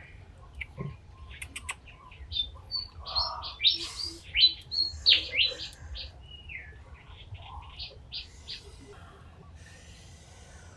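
Birds chirping: a string of short, sharp, high calls, some sliding down in pitch, thickest and loudest in the middle and thinning out toward the end.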